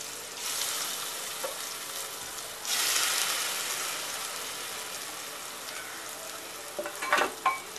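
Marinated surmai (kingfish) pieces sizzling as they go into hot oil with garlic and asafoetida. The sizzle jumps louder about three seconds in as more pieces are added, then slowly dies down.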